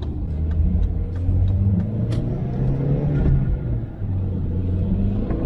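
Audi 1.8T turbocharged four-cylinder engine pulling the car along, heard from inside the cabin. The revs climb, dip briefly about four seconds in, then climb again.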